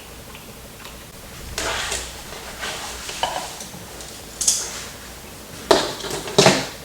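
Utensil scooping and scraping in a dish of rice, with several short clatters and clinks against the dish, the sharpest and loudest in the second half.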